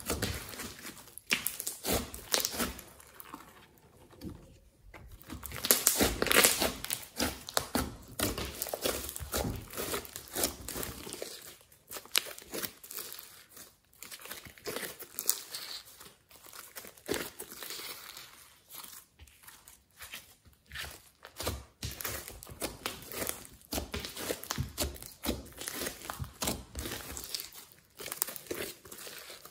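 Hands squishing, squeezing and folding a large batch of glossy slime mixed with clay and foam beads: an irregular run of crackles, clicks and wet squelches, with the loudest burst about six seconds in.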